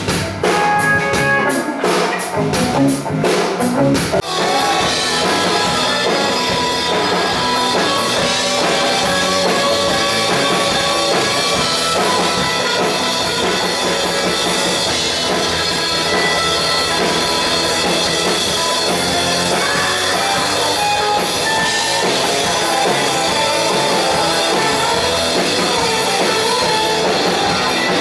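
Live rock band playing with drum kit and electric guitar. It opens with a run of sharp, accented hits, and the full band settles into a steady groove about four seconds in.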